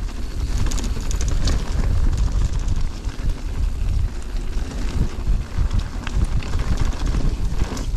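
Wind buffeting the microphone of a camera on a mountain bike rider at speed, over the rumble of knobby tyres on a dirt trail and the light clatter of the bike over rough ground.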